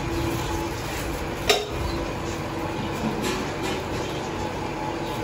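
Metal utensils and dishes clinking at a food stall: one sharp ringing clink about a second and a half in, then a few lighter knocks, over a steady din of background noise.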